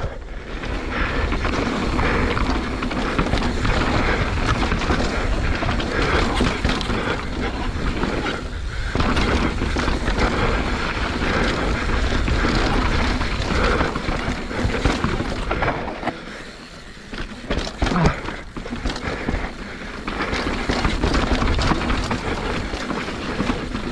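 Mountain bike ridden down a rough freeride trail: steady rushing tyre and wind noise with constant clattering and rattling from the bike over roots and rocks. The noise dips briefly about sixteen seconds in, then a sharp knock follows.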